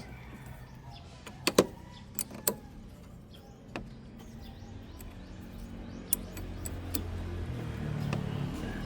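A few sharp metallic clinks of a wrench working on a car battery's terminal clamp, loudest about one and a half to two and a half seconds in. A low engine drone of a vehicle swells up in the background over the second half.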